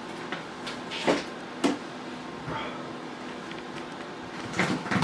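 Hand work on a snowmobile's throttle body: a few separate sharp knocks and clunks of parts being handled, with a cluster of them near the end, over a steady low hum.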